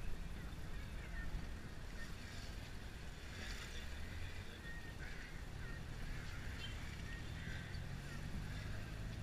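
Taxi engine and road rumble heard from inside the moving car's cabin in city traffic, steady and low, with faint scattered higher street sounds over it.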